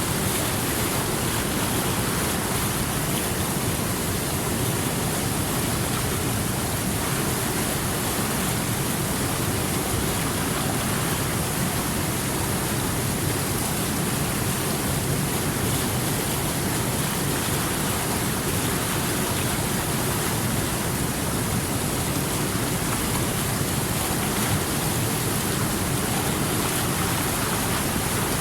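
River water flowing, a steady rushing with no breaks or changes.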